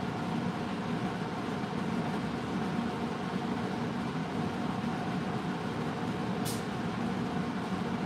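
Steady mechanical hum of a running household machine, with one brief high-pitched sound about six and a half seconds in.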